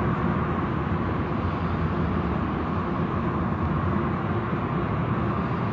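Car wash machinery running steadily: a continuous rumble and hiss with a faint steady hum.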